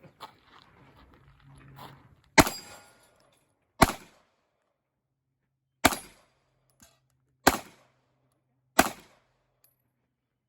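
Glock 17 Gen 5 9mm pistol firing five single shots at steel targets, spaced about one and a half to two seconds apart, each a sharp crack with a brief echoing tail.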